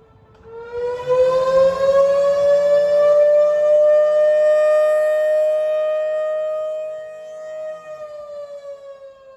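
Fire station siren on a pole, sounding a fire call to summon volunteer firefighters. It winds up in pitch about half a second in, holds a loud steady wail, and winds back down near the end.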